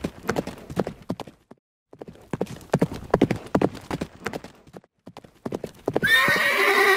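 Horse hooves galloping in quick groups of beats, breaking off briefly about a second and a half in and resuming. A horse whinnies loudly from about six seconds in.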